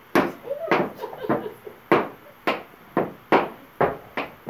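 Metal-plated tap shoes striking a wooden dance board, about ten sharp taps at an uneven rhythm of roughly two a second.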